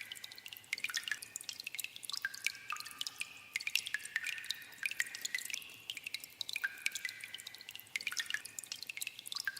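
Water dripping in a cave: many drops falling at an irregular pace, several a second, each landing with a sharp plink and a short ringing tone.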